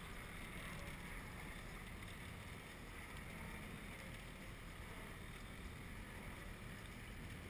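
Steady rush of wind and water from a small aluminium boat running at speed over choppy water, with wind buffeting the microphone.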